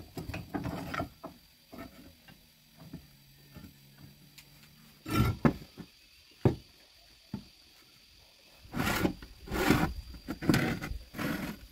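Cut pieces of steel angle iron being handled and set down on a workbench: scattered knocks, scrapes and clatter, with a louder knock a little after five seconds in and a busier run of clatter near the end.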